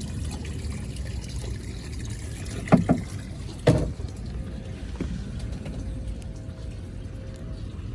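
Steady low rumble of a fishing boat on the water, with water lapping and trickling. Two brief loud sounds come close together about three and four seconds in.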